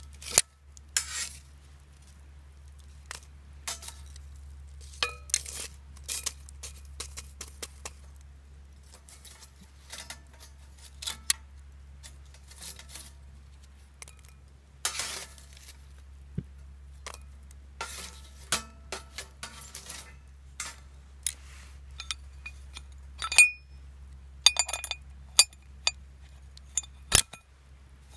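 Metal camp gear being handled: scattered clinks and clatters, some ringing briefly, over a steady low hum.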